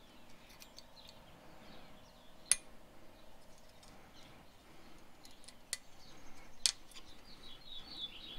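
Sharp metallic clicks of a spring-steel brake pad clip being worked and snapped onto a caliper bracket: a loud click about two and a half seconds in, two more a little after halfway, with fainter ticks between.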